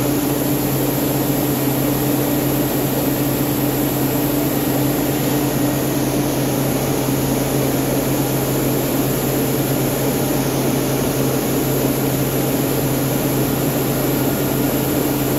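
Rice mill machinery running with a loud, steady drone and a constant low hum.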